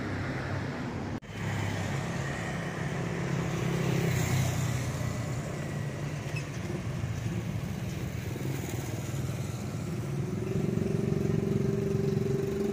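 Street traffic: car and motorbike engines passing, with a motorbike engine running louder and steadier near the end.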